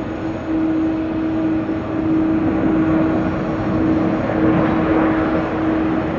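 Jet airliner engines running: a steady hum under a rushing noise that swells about four seconds in.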